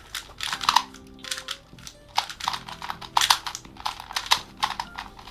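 Plastic Rubik's Cube being turned quickly by hand: an irregular run of sharp clicks and clacks as its layers snap round.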